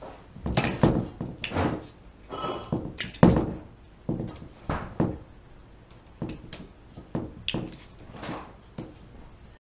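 Hollow knocks and thumps, a dozen or so at irregular spacing, the loudest about three seconds in: a cat moving about inside a tall ceramic floor vase, its body and paws bumping against the vase.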